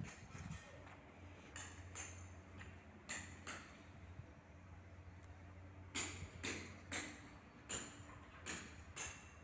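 Footsteps on stone paving: a few sharp clicks at first, then from about six seconds in a steady walk of about two steps a second, over a low steady hum.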